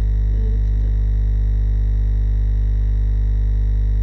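Loud steady electrical hum, a low buzz with a dense stack of overtones that never changes in level, as from mains interference on the recording.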